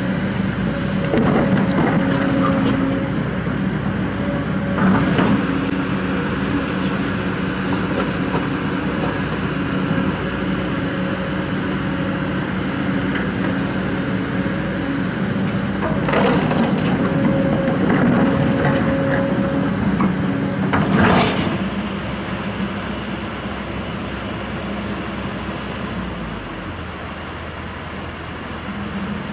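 Kobelco SK200 hydraulic excavator's diesel engine running steadily under digging load, with rocks clattering and crashing several times as the bucket works, loudest about 21 seconds in. After that the engine runs on more evenly and a little quieter.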